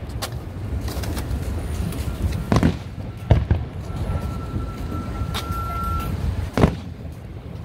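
Aerial firework shells bursting overhead: a handful of separate booms a second or more apart, the loudest near the end, over a steady low rumble.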